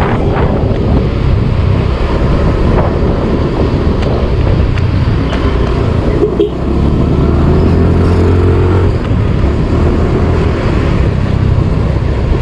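Scooter engine running at a steady cruising speed, with wind and road noise from riding.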